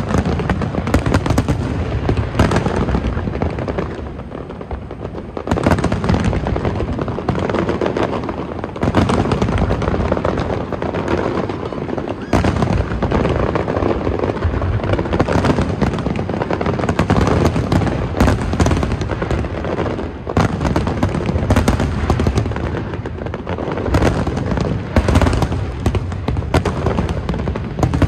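Large aerial fireworks display: a rapid, continuous barrage of booms and crackling bursts that eases briefly about four seconds in, then builds again.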